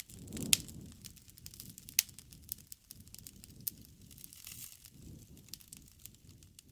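Wood bonfire crackling, with irregular sharp pops and snaps over a low rumble of flames; the loudest pops come about half a second and two seconds in.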